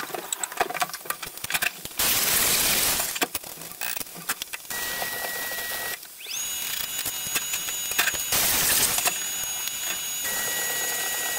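Two short bursts of flux-cored arc welding on stainless steel, each a crackling hiss about a second long, around two seconds in and again near the end. Clicks and handling noise come between them, and a steady high whine starts about six seconds in, rising quickly in pitch and then holding.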